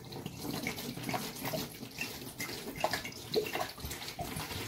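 Water pouring from an upturned glass wine bottle and splashing into a plastic tub, a steady stream.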